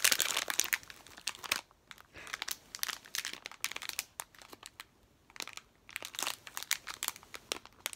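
Plastic gummy-candy packet crinkling as a baby grips and turns it in her hands, loudest in the first second or so, then in short irregular bursts.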